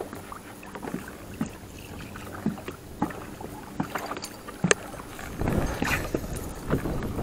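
Small fishing boat on open water: water lapping at the hull with scattered light knocks and clicks, one sharper knock past the middle, then a steadier rush of noise over the last couple of seconds.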